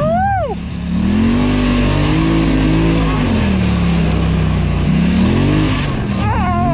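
Polaris Scrambler 1000 ATV engine running under load on a trail. Its pitch rises and falls several times as the throttle is opened and eased off.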